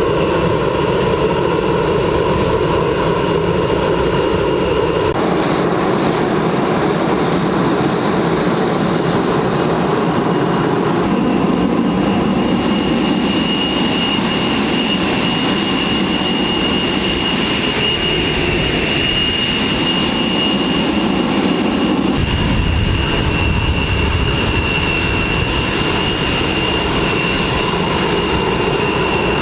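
Boeing 747 jet engines running loudly and steadily, with a high whine over the roar; the sound changes abruptly about five, eleven and twenty-two seconds in.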